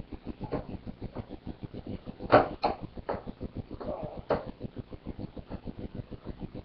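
Skateboard rolling with a fast, even clicking, about five or six clicks a second, and several sharper knocks of the board between about two and four and a half seconds in.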